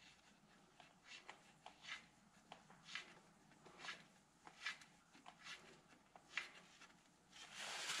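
Faint, irregular small metallic clicks and scrapes of the spindle nut being threaded by hand onto the Jeep CJ-5's front axle spindle and a socket wrench being fitted to it, with a soft rustle near the end.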